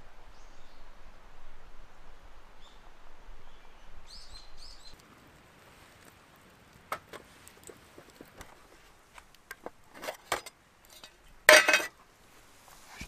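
Small birds chirping over a steady forest hiss, then a quieter stretch with a few scattered clicks and knocks, and near the end one loud clatter of aluminium camp cookware.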